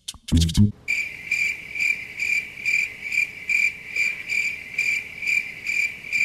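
Just after the last notes of a short music sting, crickets chirping: a steady high trill pulsing about twice a second that starts abruptly and cuts off abruptly, the stock cricket sound effect used to mark an awkward silence.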